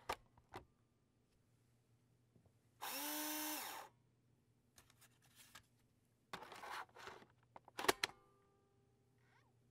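DVD drive loading a disc. A few clicks, then the spindle motor whines up in pitch and holds for about a second, followed by whirring and seeking noises and a cluster of sharp clicks near the end.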